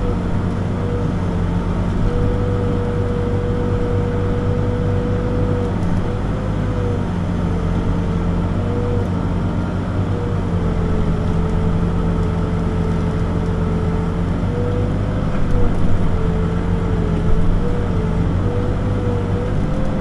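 Backhoe's diesel engine running steadily under load, with a higher whine that wavers slightly in pitch as it works. It gets a little louder briefly about three-quarters of the way through.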